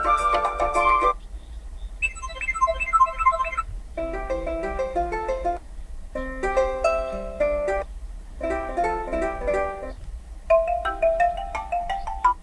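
Default ringtones of an Asus ROG Phone 6 previewed one after another: a string of short plucked-sounding ringtone melodies, each about a second and a half long, with brief pauses between them.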